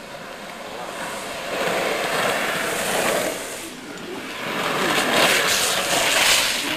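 Hard wheels of a downhill speedboard rolling fast on asphalt, a rushing noise that swells about two seconds in and again, louder, between five and six and a half seconds as riders pass close by.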